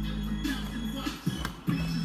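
Background music with held low notes and a beat.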